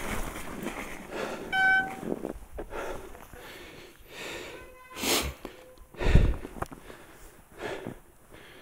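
Mountain bike brake giving a short, high squeal with a clear pitch as the bike brakes to a stop on snow. After it come several short breaths or sniffs, and a loud low thump about six seconds in.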